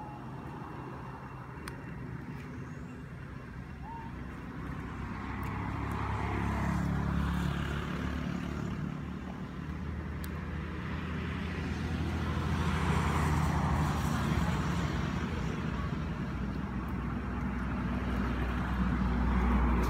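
Motor vehicles passing on a nearby road, the engine and tyre noise swelling and fading three times as each goes by.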